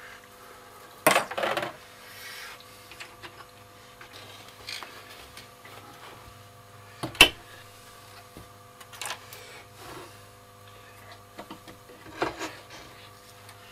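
Metal chassis parts of a Ferrograph tape recorder being handled and fitted into its case: scattered knocks, clicks and scraping, with one sharp knock about seven seconds in the loudest, over a faint steady hum.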